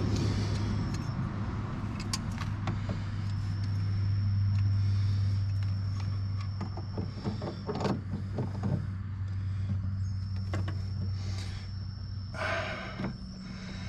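Scattered light clicks and knocks of metal parts and tools being handled at the firewall, over a steady low hum with a faint high whine coming and going.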